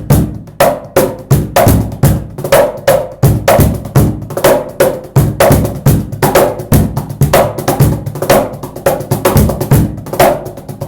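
Clapbox Cajembe cajon played by hand in a steady groove: deep bass tones mixed with sharp slaps, several strokes a second.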